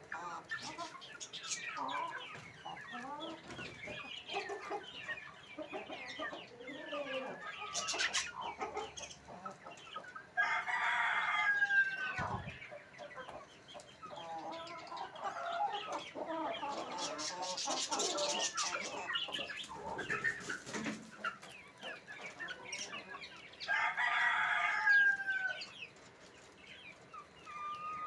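A flock of chickens clucking and chattering continuously in a coop. A rooster crows loudly twice, about ten seconds in and again near the end, each crow lasting about a second and a half and trailing off in a falling note.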